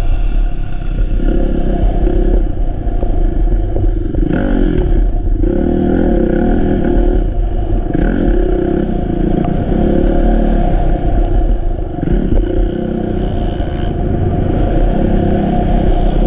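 Kawasaki KX450F four-stroke single-cylinder motocross engine being ridden hard, its pitch repeatedly climbing under throttle and dropping off as the rider shifts and rolls off between bumps and jumps.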